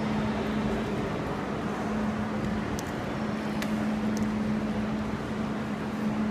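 Steady background din of a crowded railway station concourse: an even wash of noise with a constant low hum and a few faint clicks about three to four seconds in.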